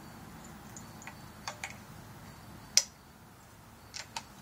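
Scattered light clicks and taps as an AR-15 rifle is handled and shouldered, the sharpest a single click a little before three seconds in.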